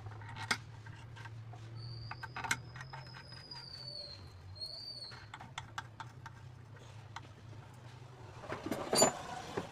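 Scattered light metal clicks and clinks as a nut is fitted by hand onto a bolt on a Bajaj three-wheeler engine's balancing wheel assembly, over a steady low hum. A long high whistling tone sounds in the background in the first half, and a louder clatter of metal comes near the end.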